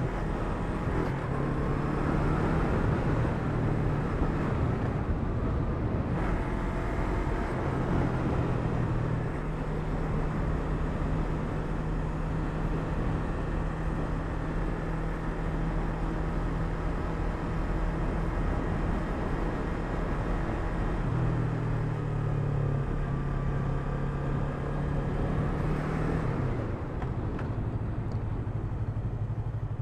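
Yamaha MT-03's parallel-twin engine running as the motorcycle cruises, its note shifting in pitch a few times with the throttle and dropping near the end as it slows.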